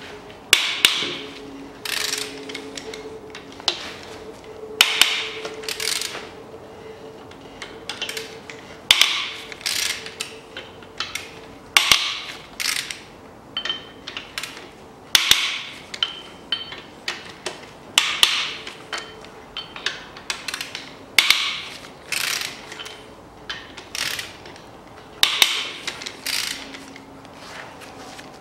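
Hand ratchet wrench clicking in short repeated back-and-forth strokes, roughly one burst of clicks a second, as engine connecting-rod cap bolts are undone with a 12-point socket.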